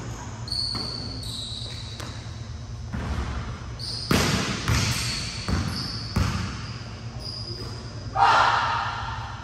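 Basketball bouncing on a court during a pickup game: a run of bounces about four seconds in, with short high squeaks throughout and a louder burst near the end.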